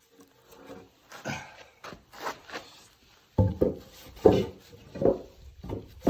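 Pieces of firewood being handled: irregular wooden knocks and scraping, faint at first, then a run of louder thuds in the second half.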